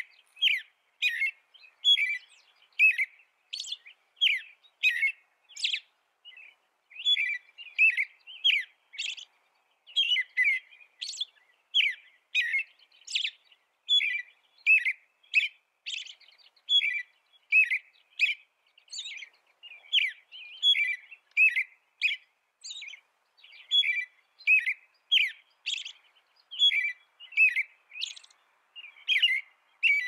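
A robin singing: a long run of short, clear whistled phrases, roughly two a second, coming in groups of several with brief pauses between.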